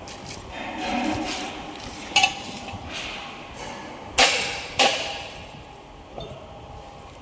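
Metal being struck: three sharp clanks, the second the loudest, each ringing briefly with a metallic tone, over a softer scraping and rattling of metal.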